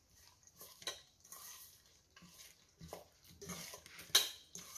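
A hand mixing raw prawns with chopped onion, tomato and spice paste in a metal pot: soft wet squishing and rustling, broken by scattered clinks and knocks against the pot. The loudest knock comes just after four seconds.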